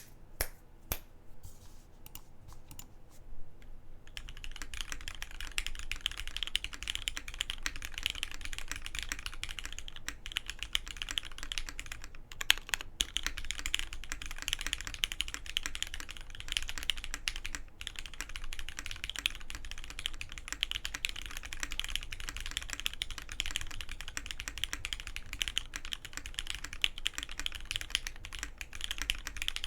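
Typing on a custom mechanical keyboard with lubed, retooled Cherry MX Black linear switches in an aluminium plate and GMK keycaps: a few separate key presses, then from about four seconds in, fast continuous typing.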